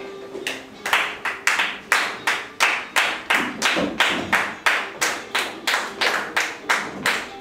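Several people clapping flamenco palmas in a steady rhythm, about three claps a second.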